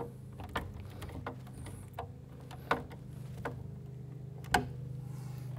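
Screwdriver turning a wire lug screw tight on a breaker panel's main breaker: a series of light clicks, roughly one every three-quarters of a second, over a steady low hum.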